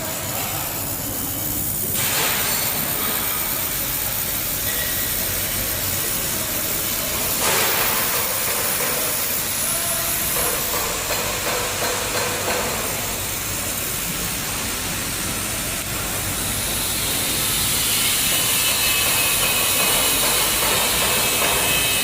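Handheld fiber laser welder working on metal: a steady high hiss that shifts in level and tone a few times as the welding goes on.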